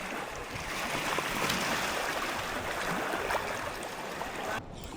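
Shallow saltwater sloshing and trickling around legs wading through a tidal flat, a steady watery hiss with small splashes.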